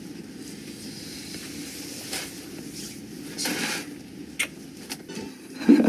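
Film-soundtrack background: a steady low hiss of ambience with a few soft rustles and a faint click, and a brief louder low sound near the end.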